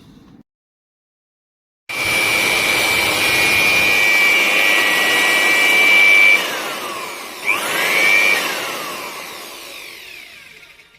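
Corded electric hand blower switching on with a high whine and running steadily. It then slows, its pitch dropping, speeds up again briefly, and winds down as it is switched off.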